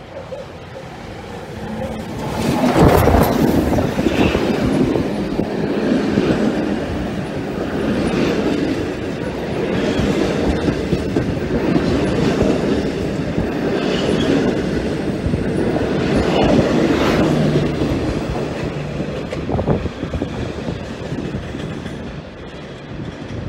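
Steam locomotive R761 and its red passenger carriages passing close by: a loud, steady rumble of wheels on rail with clickety-clack and occasional sharp clacks. It swells about two seconds in and fades near the end as the train recedes.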